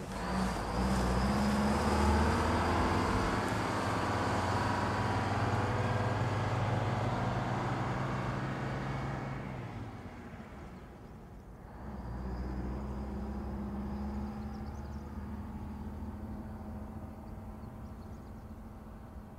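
Vintage diesel bus driving with its engine running steadily, first from inside the cabin with road noise. After a short drop about ten seconds in, the bus is heard again pulling away, its engine slowly fading.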